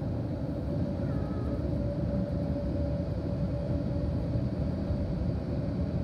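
Automatic car-wash blower dryer running, a steady rush of air with a constant fan hum, heard from inside the car as the drying gantry passes over the rear.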